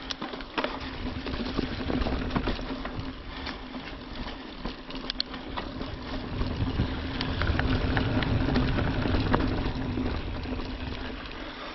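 Mountain bike rolling along a dirt trail: steady tyre noise with a low hum, and scattered clicks and knocks from the bike rattling over the ground. Wind rumble on the microphone swells through the middle and latter part.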